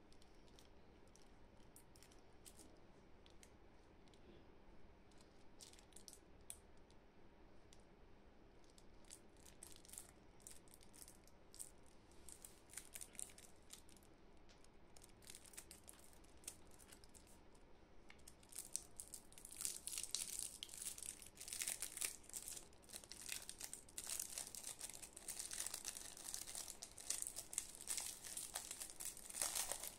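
Foil candy wrapper crinkling in gloved hands as it is handled and pulled open. There are sparse small crinkles at first, then steady, denser crinkling and tearing of the wrapper from about two-thirds of the way in.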